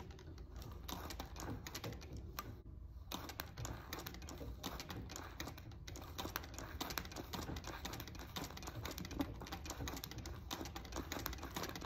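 Treadle sewing machine stitching free-motion lace, the needle going through the hooped work in a steady, rapid run of light mechanical clicks.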